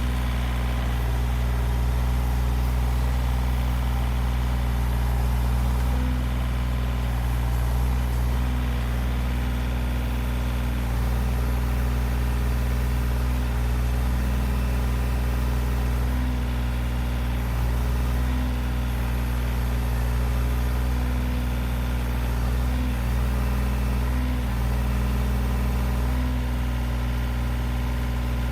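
John Deere 35G compact excavator's diesel engine running steadily, with small brief changes in pitch every few seconds.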